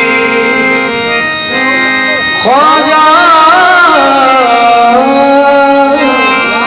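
Live male singing over a harmonium. The harmonium plays sustained chords alone for the first couple of seconds, then the voice comes in with long, gliding held notes.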